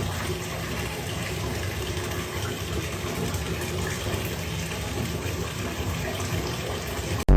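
Water running steadily from a tap, filling a bath.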